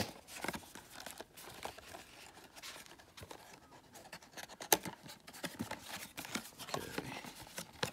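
Quiet handling of a small cardboard Funko Mystery Minis box as its seal is cracked and its top flap opened: soft rustling and scraping of cardboard, with scattered light clicks and one sharper click about halfway through.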